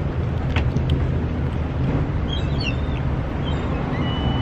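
Steady low outdoor rumble, with small birds chirping from about two seconds in: short high chirps and a brief held whistle near the end.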